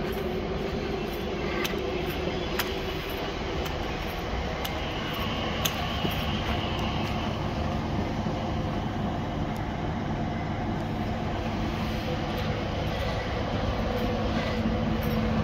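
Class 153 Sprinter diesel multiple unit running slowly along the platform, its underfloor diesel engine giving a steady hum, with a few short sharp clicks scattered through and the sound growing slightly louder near the end.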